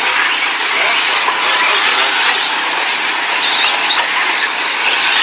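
Several radio-controlled off-road cars running laps together: a steady mix of motor and tyre noise, with faint small rises and falls in pitch as the cars speed up and slow down.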